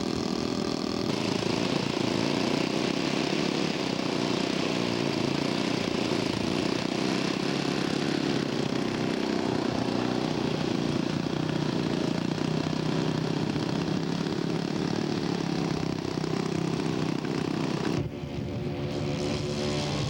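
Radio-controlled scale model aircraft engine running steadily. About two seconds before the end, the sound changes abruptly to a clearer engine note from another model.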